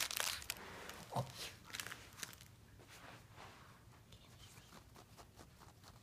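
Crinkle-paper plush toy crinkling and rustling as a Shih Tzu chews and mouths it. The crinkling is thickest in the first two seconds, then fades to faint scattered crackles. A brief low sound comes about a second in.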